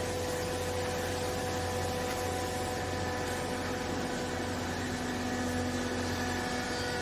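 Hydraulic clothes baler's electric motor and pump running with a steady hum of several fixed tones; a lower tone joins about three seconds in.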